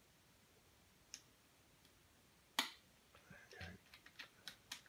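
Small clicks from handling a Baikal Makarov MP-658K air pistol's grip and grip screw while the screw is started in its thread: mostly quiet, one sharp click about halfway through, then a fast, quickening run of small clicks near the end as the screw is turned in.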